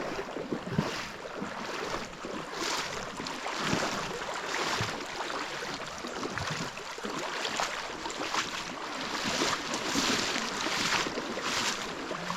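Running river water with irregular splashes and rustles, as people make their way through the water and along the bank.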